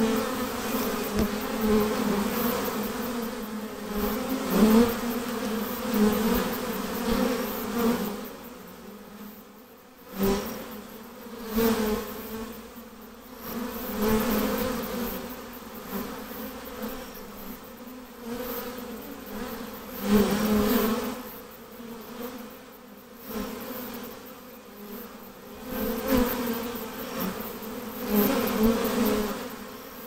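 Honey bees buzzing in the air around an opened hive, a steady hum that swells and fades every second or two as bees fly close past.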